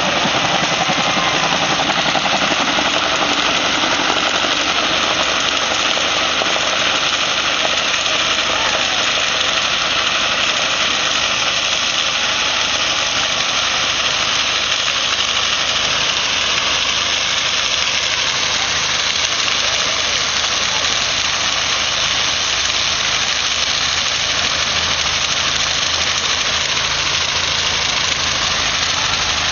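Car engine held at high revs in a steady, unbroken burnout, its drive tyres spinning against the pavement.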